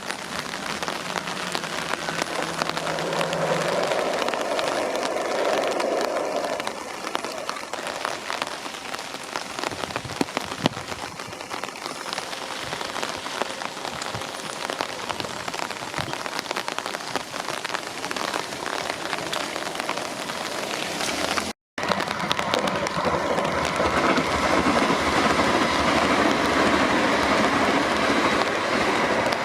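Heavy rain falling steadily. A low hum fades out in the first few seconds, and after a brief dropout about two-thirds through the rain is louder.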